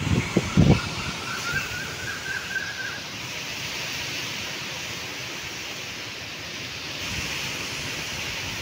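Strong cyclone wind rushing through a large tree's leaves, with heavy wind buffeting on the microphone in the first second.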